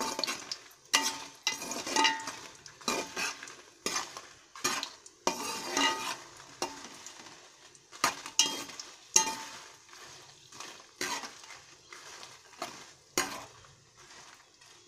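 A metal spoon stirring dried red chillies frying in oil in a metal pot, with irregular scrapes and clinks against the pot and a light sizzle underneath. The strokes grow fainter in the second half.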